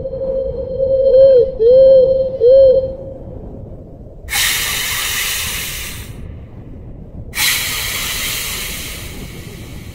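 A held whistle-like tone that swoops down and back up three times, followed by two long hisses, each about a second and a half to two seconds, played as a rabbit-repellent sound.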